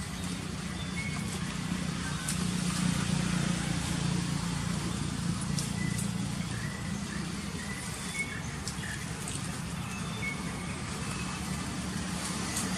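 Steady low drone of a motor engine running, slightly louder for a few seconds near the start.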